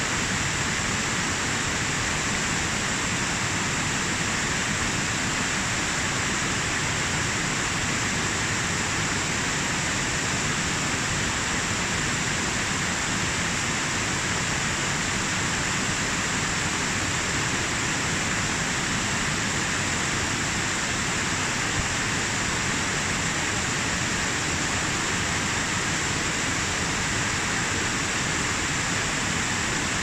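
Waterfall cascading down a steep bed of boulders: a steady, even rush of water with no break or change.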